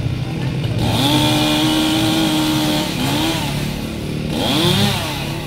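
Chainsaw revved up to full throttle about a second in and held there for about two seconds, then dropping back and revved up again twice, the second time more sharply near the end.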